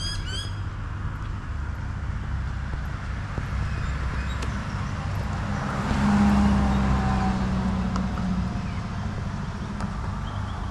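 Suburban street traffic: a steady low rumble of cars, with a vehicle passing close and louder about six seconds in, humming steadily for a couple of seconds. A few short high chirps sound right at the start.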